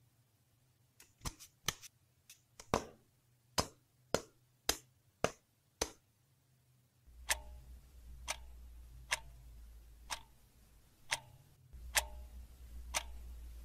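Clock ticking added as a tension sound effect: sharp ticks, irregular and quicker at first, then about one a second over a low hum that comes in about halfway through.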